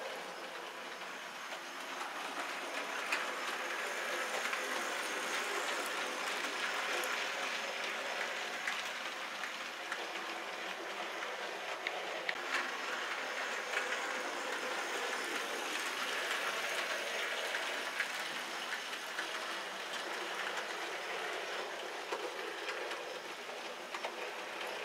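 Model train running along the track: a steady rolling rush of wheels on rails with a few faint clicks. It grows louder from about four seconds in and eases off again after about eighteen seconds as it passes.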